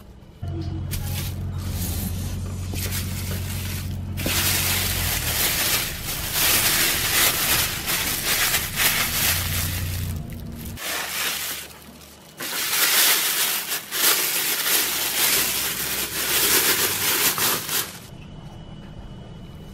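Plastic cling film crinkling and rustling in two long stretches, first as it is wrapped around a ball of pie-crust dough and then as it is peeled off.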